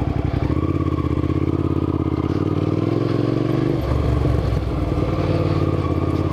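Motorcycle V-twin engine with a full aftermarket exhaust, running under way with a steady pulsing beat. The engine note changes about four seconds in, as the throttle or gear changes.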